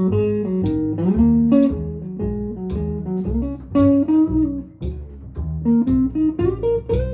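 Blues guitar playing, with bent lead notes over a pulsing bass line.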